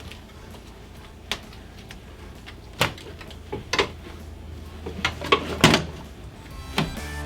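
Scattered clicks and clunks of hand work on a motorcycle being stripped, as parts and the wiring harness are pulled and knocked about. There are about eight sharp knocks, the loudest in a cluster a little after halfway, over a steady low hum.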